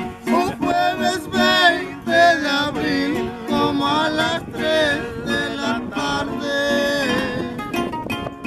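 Two acoustic guitars playing a corrido, strummed chords with picked runs, and a man's voice singing over them in sliding, wavering notes.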